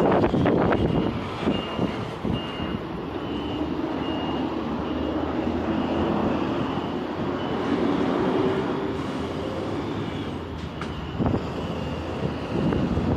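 City street traffic noise with a high electronic beep repeating about twice a second through the first half.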